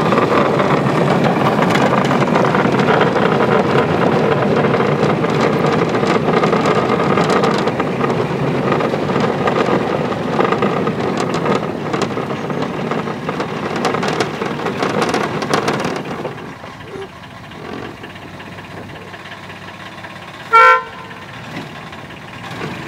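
Ride-on miniature railway train running along its track, with a steady running noise and scattered clicks that fall away about sixteen seconds in as it slows. One short horn toot comes near the end.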